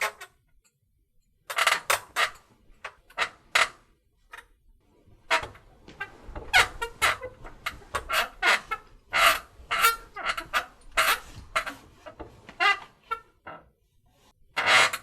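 Cheap bed's springs squeaking in irregular runs of short, high squeaks, about two a second. There is a short pause near the start, another after about four seconds, and a lone squeak near the end.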